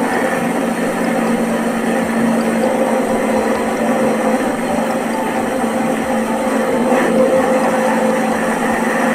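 Electric mixer-grinder (blender) running steadily, blending milk, ice and coffee into cold coffee, with a constant motor hum and churning.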